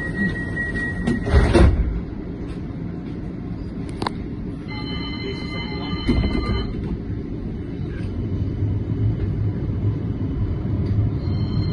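Running noise of a modern tram heard from on board: a steady low rumble, with a loud knock about a second and a half in. A ringing chord of steady tones sounds for about two seconds in the middle and starts again near the end.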